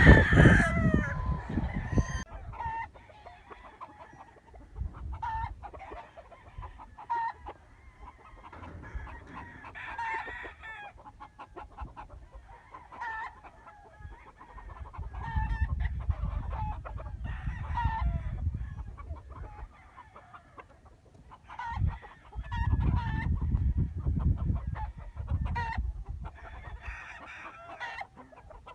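Chickens clucking: many short calls repeat every second or so, with a louder, longer call right at the start. A low rumbling noise comes and goes twice.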